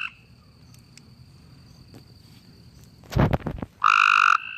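A frog calling: the end of one short, loud, buzzy croak right at the start, then another croak about four seconds in, each about half a second long. Just before the second croak there is a brief loud rustling clatter, and a faint steady high tone runs behind.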